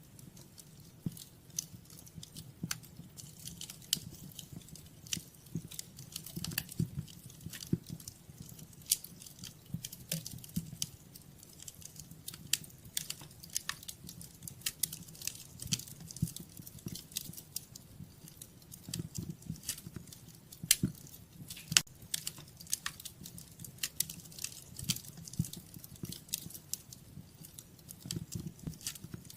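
Wood fire in a fireplace crackling, with irregular sharp pops and snaps over a soft low rumble of the flames; one snap about two-thirds of the way through is louder than the rest.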